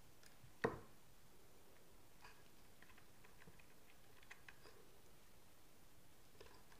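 Faint scattered clicks and ticks of a wire being handled and pressed into the brass screw terminals of a plastic switchboard, with one sharp knock about half a second in.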